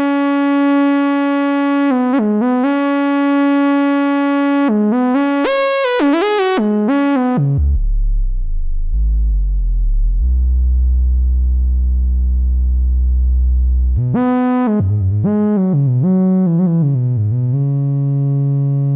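DIY Ad-vantage 03M analogue synthesizer playing one note at a time, mostly held notes joined by quick pitch slides. About eight seconds in it drops to a deep bass note held for about four seconds, then slides back up and settles on a mid-low note near the end.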